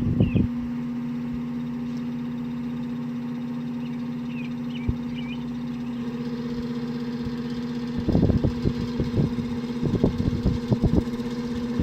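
Antique Emerson table fan running with a steady electric motor hum. From about eight seconds in, irregular clicking and knocking rattles join it, which the owner puts down to the motor probably lacking oil.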